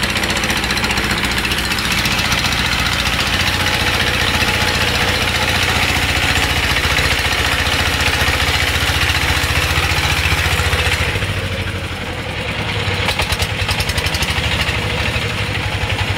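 Engine of a wooden river boat running steadily with a low, even chugging pulse and a constant hiss over it. The engine eases off about twelve seconds in, then its pulsing picks up again.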